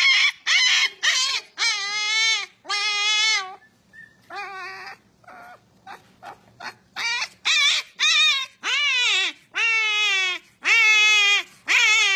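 Husky puppy crying out in a long string of high-pitched whining calls. A few short quick yips come first, then longer calls that each rise and fall, a dozen or so, with a brief sparser stretch in the middle.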